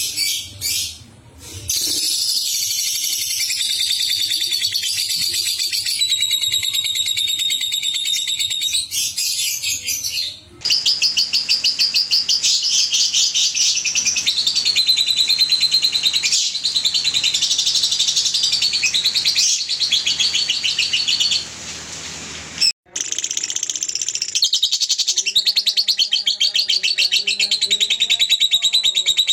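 Caged lovebirds singing long, fast chattering trills of rapidly repeated high chirps, the sustained 'ngekek' song, in several recordings spliced together, the sound changing abruptly about 2, 10 and 23 seconds in.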